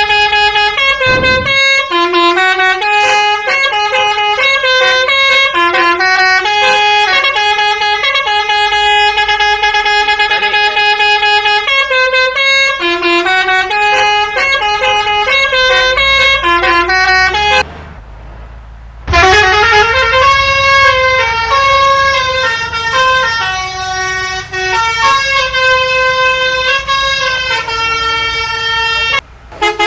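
Basuri telolet horn, a multi-tone musical bus horn, playing a tune of held chords that step from note to note. It breaks off for about a second and a half a little past halfway, then starts up again.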